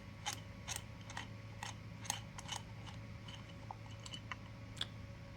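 Light, irregular clicks and ticks of a 4 mm Allen key turning out the cover screws of an X-10 reloading press, a dozen or so over a few seconds.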